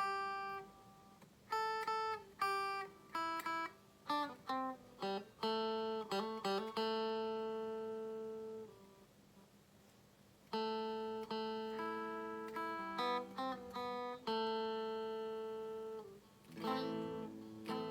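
Clean-toned Donner electric guitar played as a demo: picked single notes and chords left to ring, a pause of about two seconds midway, then a strummed chord near the end.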